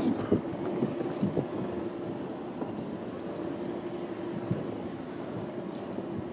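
Engine and road noise heard from inside a slowly moving vehicle: a steady hum with a few short knocks and rattles from the rough road.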